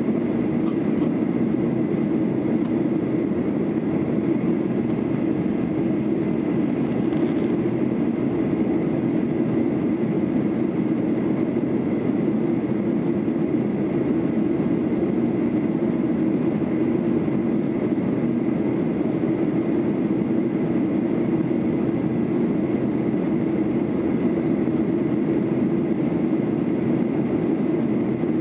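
Steady cabin noise inside a Boeing 737-800 in flight: the drone of its CFM56-7B jet engines and the rush of air past the fuselage, with a faint steady high whine.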